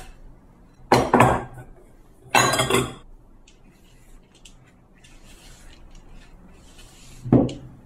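Two short bursts of clinking and tapping as a glass bowl is emptied of dry ingredients over a ceramic mixing bowl, then the quiet scraping of a spatula stirring thick chocolate cookie batter, with a dull knock near the end.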